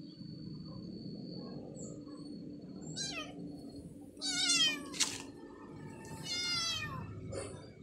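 Kittens meowing: about four short, high-pitched meows, each falling in pitch, beginning about three seconds in, with a sharp click between the second and third.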